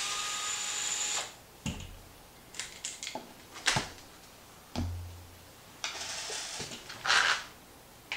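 Cordless screwdriver whirring with a thin motor whine for about a second as it spins off an RC truck's wheel nut. Then come scattered knocks and a low thump as the wheel is pulled off and handled. A short burst of the driver running again comes near the end.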